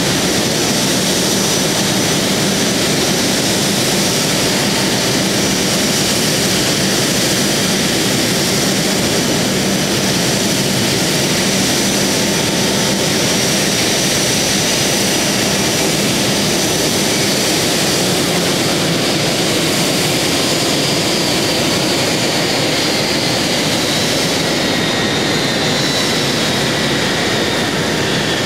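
Airbus A380's Rolls-Royce Trent 900 turbofans idling with a steady rush and high whine while the jet stands stopped. From about two-thirds of the way in the whine slowly falls in pitch as the engines begin to spool down.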